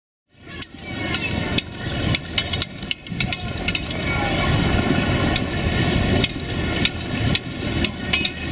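Horses moving about on frozen ground with many sharp knocks and clicks, over the murmur of a crowd of children.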